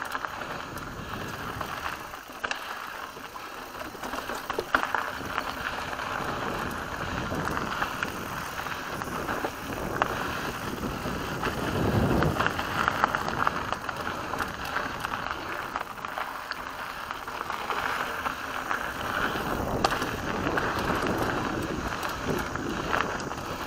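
Mountain bike rolling fast down a dry dirt single-track trail: steady tyre noise on dirt and gravel, with scattered clicks and rattles from the bike over bumps.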